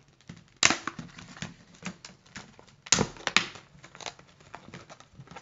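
Stiff clear plastic lure packaging crackling and snapping as it is pried open by hand, with two loud cracks, one under a second in and one about three seconds in.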